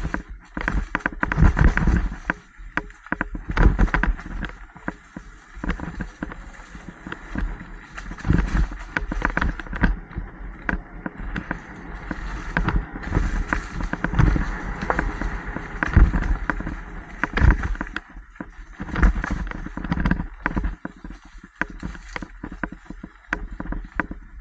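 Mountain bike rolling over rough dirt singletrack: an uneven stream of rattles and knocks from the bike as it hits bumps, over a low wind rumble on the helmet-mounted microphone.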